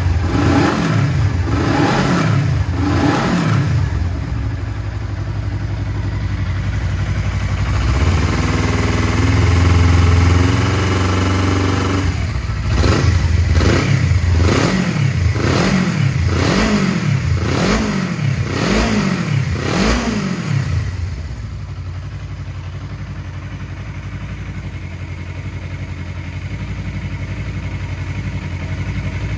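Suzuki GSR250's 248 cc parallel-twin engine, breathing through an aftermarket Realize slip-on muffler, revved in repeated quick blips with one longer hold in the middle. It then settles to a steady idle for the last third.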